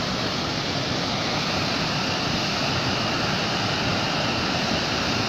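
Flash-flood torrent of muddy water rushing steadily down a dry riverbed, a continuous even roar of moving water.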